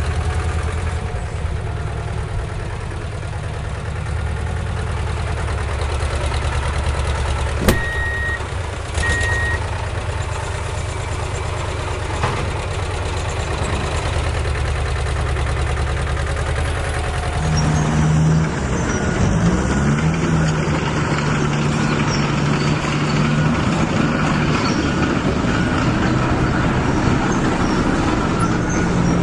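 Truck engine sound running steadily, with a click and two short beeps about a third of the way in. A little past halfway it changes to a louder, heavier running sound.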